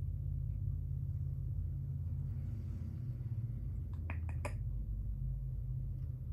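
Steady low hum, with a quick run of about four sharp clicks about four seconds in.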